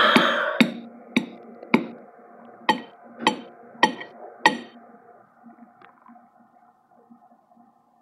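A drawn-out voice fades out in the first half second, then seven sharp ringing strikes about half a second apart, each leaving a short pitched ring, the last about four and a half seconds in, with the ringing dying away soon after.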